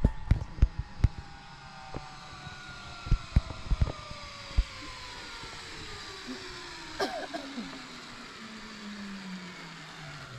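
Zipline trolley pulleys running along a steel cable as a rider speeds away down the line: a whine that falls steadily in pitch over about ten seconds. A few sharp knocks in the first five seconds.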